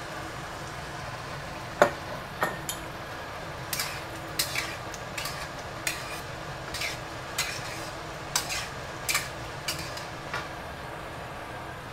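Metal spatula scraping and clinking against a stainless steel wok as tomato sauce is stirred, with a sharp clank about two seconds in and then short scrapes roughly every half second.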